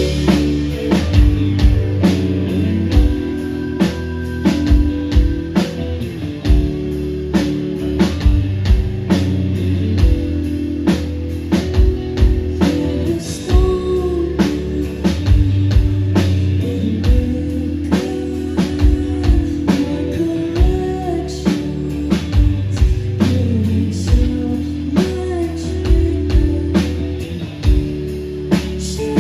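Live rock band playing a song: electric guitar and bass over a steady drum-kit beat, with a voice singing at times.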